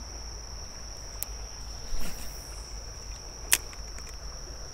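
Insects calling in one steady high-pitched drone over a low rumble, with a single sharp click about three and a half seconds in.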